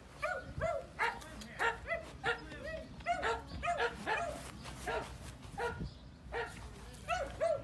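Standard F1b Goldendoodle puppy yipping over and over: short high-pitched barks, each rising then falling in pitch, two or three a second, with a brief pause near the end.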